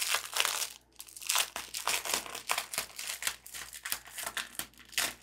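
Clear plastic packaging sleeve crinkling as hands open it and work a fabric mouse pad out, a rapid, irregular run of crackles.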